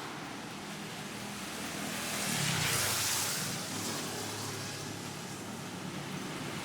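Street ambience: a steady wash of traffic noise, with a vehicle passing close that swells and fades about two to four seconds in.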